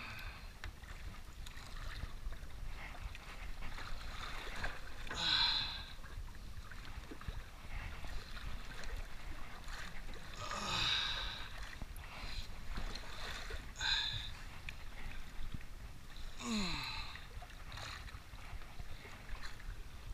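An angler breathing hard and grunting with effort while fighting a thresher shark on a jigging rod and spinning reel, with a heavy, falling exhale about four times, over a steady wash of sea and wind around the small boat.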